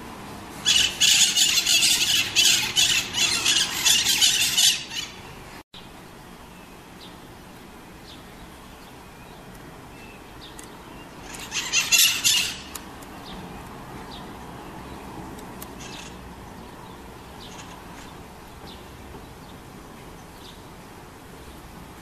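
Green parakeets screeching: a loud run of harsh, rapid shrieks lasting about four seconds, another short burst near the middle, then only faint scattered calls.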